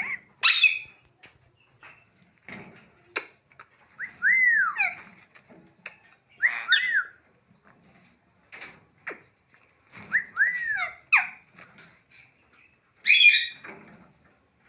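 Pet parrot calling: three whistled notes that rise and fall, and two harsh screeches, one just after the start and one near the end.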